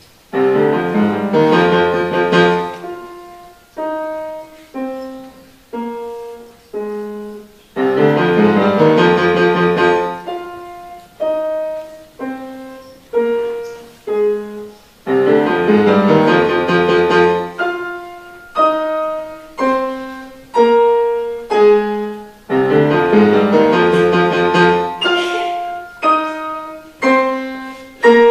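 Solo piano playing a slow repeating phrase. Full chords sound about every seven and a half seconds, each followed by a few single notes, one at a time.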